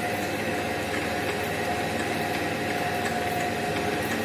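Milling machine running steadily, its arbor-mounted multi-point cutter cutting into a spur gear blank and removing metal: an even machine hum with one held tone.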